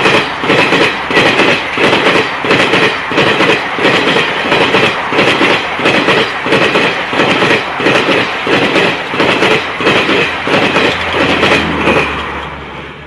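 Garib Rath Express coaches passing at speed, their wheels clattering over the rail joints in a steady clickety-clack about twice a second. The sound drops away near the end as the last coach goes by.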